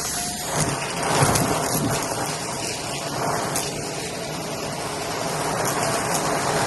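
Shark vacuum running over carpet, sucking up small crunchy beads that crackle and rattle as they go up the nozzle, the sound swelling and easing with each pass.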